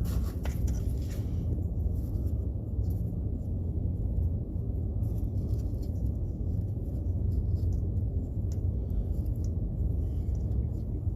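Scattered light clicks and taps of hand tools and metal parts being handled, over a steady low rumble.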